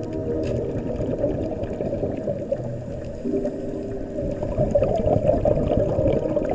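Underwater bubbling and crackling from scuba divers' exhaled air bubbles, loudest about five seconds in. Soft held ambient music tones sound under it from about three seconds in.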